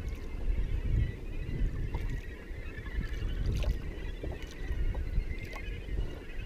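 Wind buffeting the action-camera microphone and water slapping against the hull of a drifting jet ski, with scattered small ticks and knocks.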